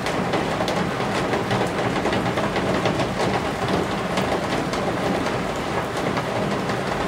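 Steady rain beating on the eaves of a roof: an even hiss with many separate drop hits.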